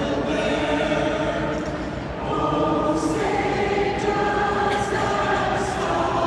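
Many voices singing together as a choir or crowd, holding long notes that shift pitch together every second or so.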